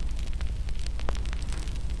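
Wood fire in a fireplace crackling, with many sharp irregular pops and snaps over a steady low rumble.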